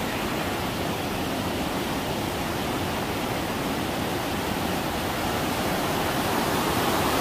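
Steady rushing of a mountain valley stream, an even hiss that grows slightly louder near the end.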